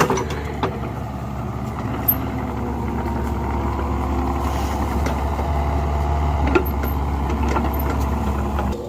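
An engine running steadily with a low, even hum, which cuts off near the end.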